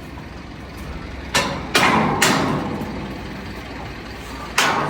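Low steady engine rumble on a building site, with four sharp bangs: three close together about a second and a half in, and one near the end.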